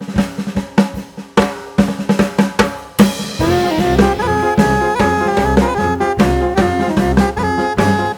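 Background music: a swing jazz track opening with a solo drum kit for about three seconds, then the full band with horns and a walking bass line coming in.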